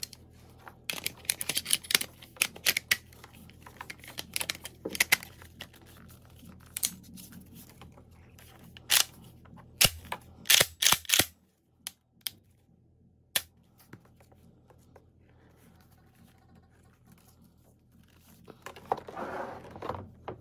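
Sharp clicks and clacks of a Benelli Super Vinci shotgun being handled over its plastic hard case, parts knocking and snapping, with a cluster of loud clicks about ten seconds in. Near the end, a longer scraping rustle as the gun is laid back into the case.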